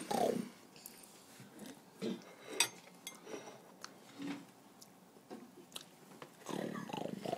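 Wet, scattered mouth smacks and clicks of someone eating pumpkin pie straight off a plate with no hands. Near the end a longer, rough rumbling noise starts and carries on.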